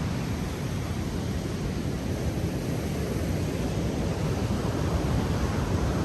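Steady rushing noise of wind and ocean surf.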